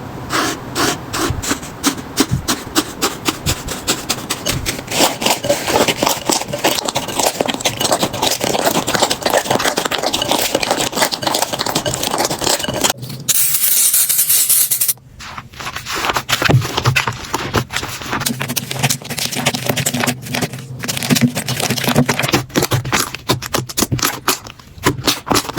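Slime being squeezed, poked and stretched by hand, making dense, fast clicking and crackling. About halfway through there is a steady hiss for about two seconds, and then the crackling starts again.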